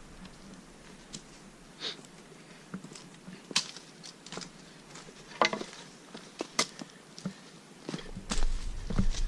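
Footsteps on a forest walking trail: irregular crunching steps, with a low rumble coming in near the end.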